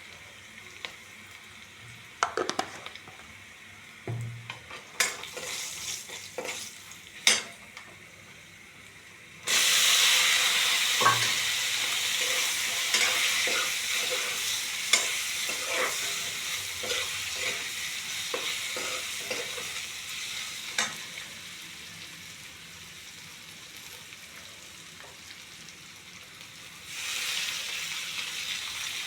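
Spoon clicks and scrapes in a pan, then about ten seconds in a sudden loud sizzling as food goes into hot mustard oil, with stirring clicks through it. The sizzle dies down over the next ten seconds and rises again near the end.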